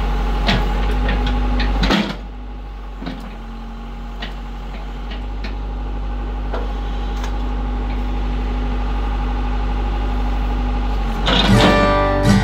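Case backhoe loader's diesel engine running steadily, with scattered knocks and clanks. Acoustic guitar music comes in near the end.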